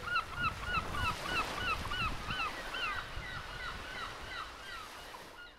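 A flock of birds calling over and over, several short calls a second that rise and fall in pitch, gradually fading out.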